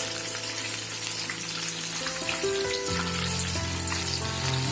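Coated chicken pieces deep-frying in oil, a steady sizzle as the coating crisps into a crust.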